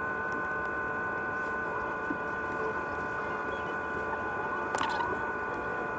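A steady hum of several held tones inside a stopped car's cabin, with a short click near the end.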